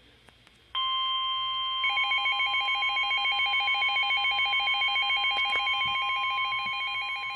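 NOAA Weather Radio warning alarm tone: a steady, piercing 1050 Hz tone that starts about a second in and signals a warning. About a second later a rapid two-pitch beeping joins it, pulsing several times a second.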